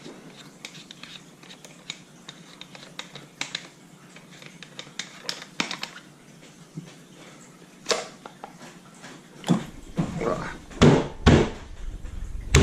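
Scattered small clicks and knocks of shotgun parts being handled and taken apart, with a few louder clunks and a low rumble of handling noise toward the end.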